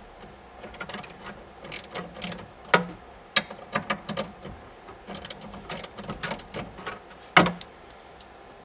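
Hand ratchet clicking in short, irregular spurts as small screws are backed out of the truck's dash trim, mixed with sharper clacks of the tool against the hardware; the loudest clack comes near the end.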